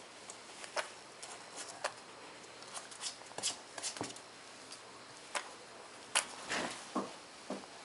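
Light, scattered scratches, taps and rustles as a baby grey squirrel is handled in fleece gloves and scrabbles its claws on a wooden tabletop, with the sharpest tap a little past six seconds.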